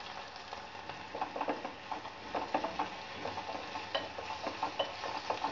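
Chopped onions, garlic, green chillies and curry leaves sizzling in hot oil in a pressure pan, while a spatula stirs them with irregular scraping clicks against the pan.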